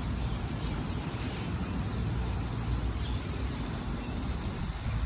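Outdoor background noise: wind buffeting the phone's microphone as a steady, uneven low rumble, with a few faint high chirps in the first second and a half.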